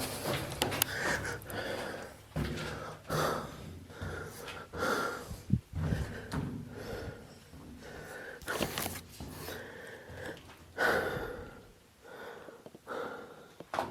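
A person breathing heavily in irregular puffs while moving about, with scattered knocks and footfalls; a sharp knock comes about five and a half seconds in.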